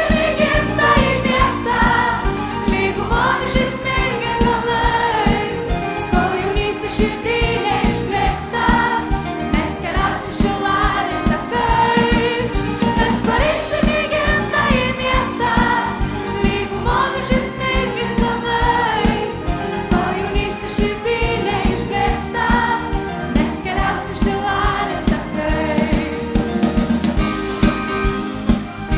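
A song performed live by a woman singer with a choir and a band, with drums keeping a steady beat.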